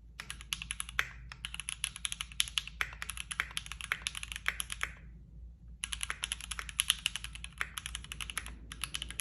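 Typing on a Keychron Q6 full-size mechanical keyboard with Gateron G Pro Brown tactile switches: a rapid run of key clacks, a short pause about five seconds in, then more typing.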